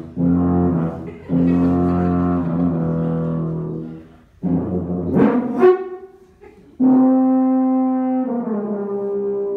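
Miraphone tuba playing an improvisation: long held low notes, then a rough, buzzing passage that sweeps up in pitch about halfway through. After a short break comes a final held note that steps down in pitch.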